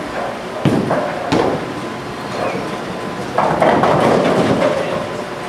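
Bowling alley sounds: bowling balls rumbling down the lanes and pins clattering. Two sharp knocks come about a second in, and a longer, louder rumbling clatter of pins falls past the middle.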